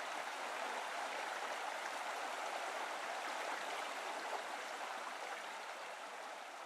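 Steady rushing background noise, like flowing water, fading out near the end.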